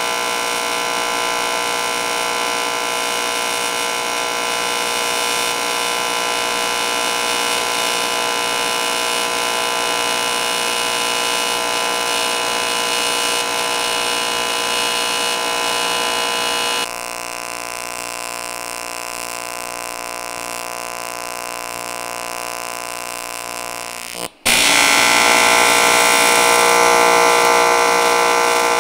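AC TIG welding arc on aluminium plate: a steady buzz made of many even tones. About two-thirds of the way in it steps down quieter, then cuts out for an instant and comes back louder.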